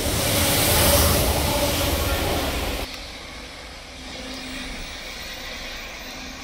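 Diesel train passing close by, most likely the pair of Class 66 diesel locomotives hauling a rail head treatment train: loud engine and rolling noise that peaks about a second in, then drops off abruptly about three seconds in and leaves a quieter steady rumble.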